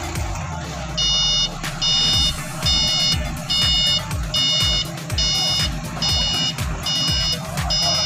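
Lonking forklift's reversing alarm beeping steadily, a little over once a second, starting about a second in, as the forklift backs away from the container. Background music with a thumping beat plays underneath.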